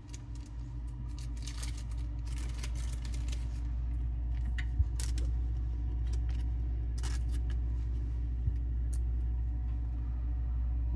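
Clear plastic card sleeve crinkling in short bursts as a trading card is handled into it, over a steady low hum. Two soft taps, about five and eight and a half seconds in.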